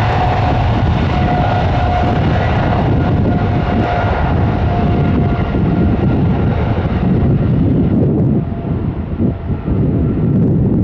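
Large aircraft's engines running loud, a dense rush with a steady whine in it. The whine and the higher part of the sound fade over the last few seconds.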